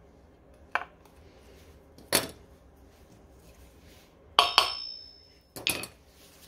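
Metal tool knocking and clinking against the hub of a Xiaomi M365 scooter wheel: four sharp metallic knocks, the third a quick double strike that rings briefly.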